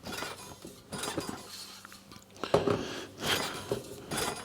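Steel spokes of a freshly laced mountain-bike wheel clinking and pinging in irregular clicks as the wheel is stress-relieved, the spokes settling and unwinding under load; the clatter is loudest a little past halfway.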